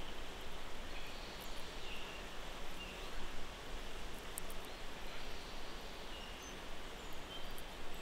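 Outdoor ambience: a steady hiss of background noise with a few short, scattered bird chirps and faint clicks.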